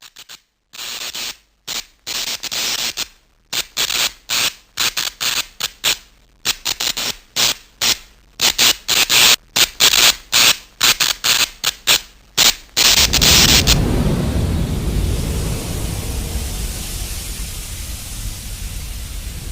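A rapid, irregular series of short hissing, static-like noise bursts, like crackling gunfire. About 13 seconds in, they give way to a steady, deep rumbling noise.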